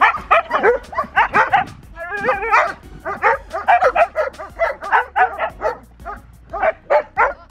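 Dogs barking and yipping in quick succession, about three or four calls a second, with a longer warbling, howl-like call a little after two seconds in.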